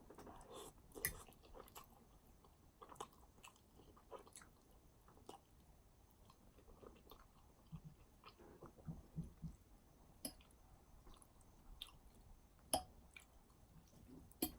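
Faint close-up chewing of a person eating, with irregular soft clicks from the mouth.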